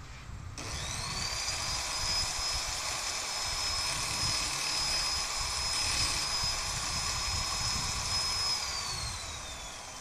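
A corded electric drill fitted with a sanding disc spins up about half a second in and runs with a steady high whine. The sharp end of a gray tube is ground against the disc, giving a grinding hiss over the whine. Near the end the drill winds down with a falling whine.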